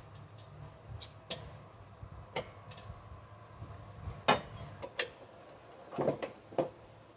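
Scattered metal clinks and clicks of hand work on mower deck hardware, a dozen or so separate knocks, the loudest about four seconds in and a quick cluster near six seconds.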